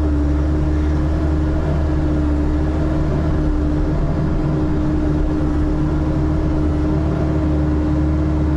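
Engine of a bucket-equipped digging machine running at a steady speed: a constant loud drone with a steady hum note and no change in pace.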